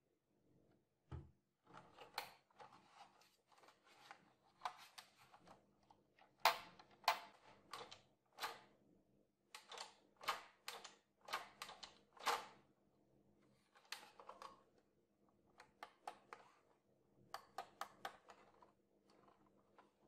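Hands handling a plastic HP laptop docking station: irregular clicks, taps and rubbing of the casing, with a low thump about a second in, over a faint steady hum.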